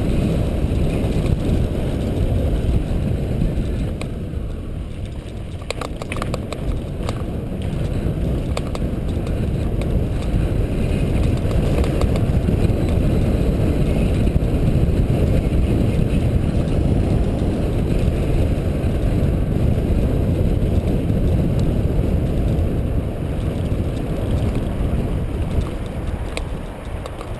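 Wind buffeting the microphone of a camera on a mountain bike riding fast downhill, mixed with low rumble from the tyres on a dirt trail. A few brief rattles about six seconds in.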